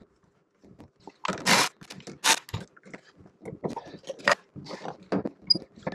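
Irregular scraping, rubbing and crunching handling noises, with a low knock about two and a half seconds in, as hands work a rubber dripless prop-shaft seal and its plastic installation sleeve on the shaft.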